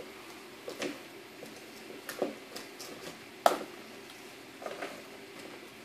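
Scattered light clicks and taps of plastic Easter eggs and small items being handled, with one sharper click about three and a half seconds in, over a faint steady hum.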